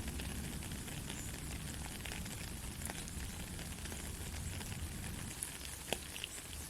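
Soft rain falling: a steady hiss with scattered sharp drop clicks, the clearest about three seconds in and near six seconds.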